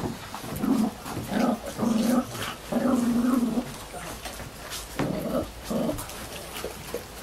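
Dog growling in about six short, low, drawn-out bursts, the longest a little past the middle, while dogs jostle at a shared food bowl.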